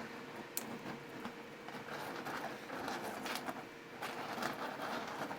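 Small 3D-printed plastic articulated dragon segments clicking and rattling lightly as the toy is flexed and handled, with a few sharper clicks among soft rustling.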